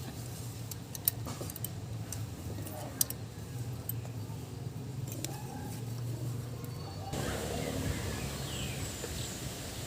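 Light metallic clinks and taps from hand work on the cylinder head's valve locks, with two sharp clicks about a second in and about three seconds in, over a steady low hum.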